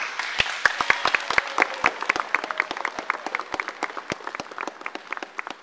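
Audience applauding: it starts suddenly and the dense clapping thins out toward the end.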